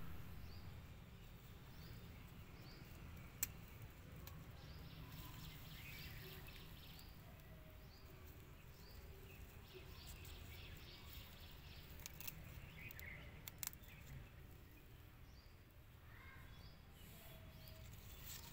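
Faint outdoor background of distant birds chirping now and then over a low steady rumble. A sharp click comes about three seconds in, and a couple more come around fourteen seconds.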